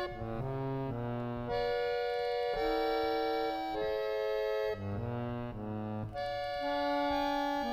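French-style pressure-reed harmonium, made by Alexandre and sold as a Thomas D'Almaine, playing held chords that move from one to the next every second or so, with a lower bass line coming in near the start and again about five seconds in.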